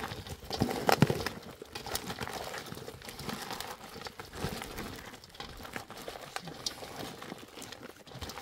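Dry bread pieces crackling and crunching as hands crumble and mix them in a stainless steel bowl, with irregular crackles throughout and a few louder ones about a second in.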